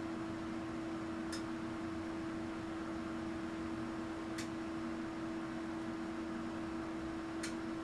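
Steady electrical hum from the AC test rig driving the multimeters, with a faint click about every three seconds as the generator steps the test waveform to a new voltage and frequency.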